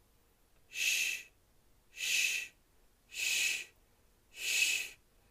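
A person's voice saying the 'sh' sound /ʃ/ four times in a row, each a short hiss about half a second long with a pause of about a second between. It is the /ʃ/ sound spelled with 's', as in 'sure'.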